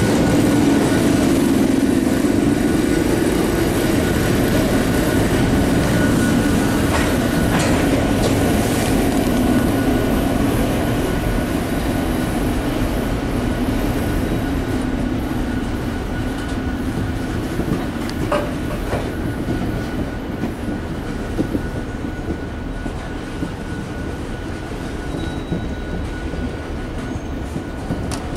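Freight train of tank cars rolling past: a steady rumble of steel wheels on rail with occasional clacks over the rail joints and a thin, steady wheel squeal above it. The rumble eases off slightly toward the end.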